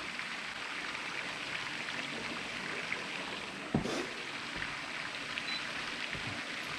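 Steady background hiss with a single knock about four seconds in.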